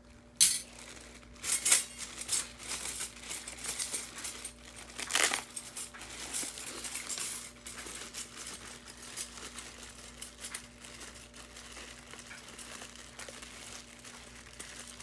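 Clear plastic zip-top bag crinkling and rustling as it is handled and worked open, with the silver-plated flatware inside clinking now and then. Two sharp clicks in the first two seconds stand out; the handling is busiest in the first half and quieter after.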